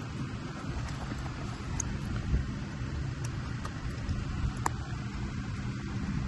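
Steady low rumble of outdoor background noise, with a few faint small clicks as e-bike wiring and plastic connectors are handled.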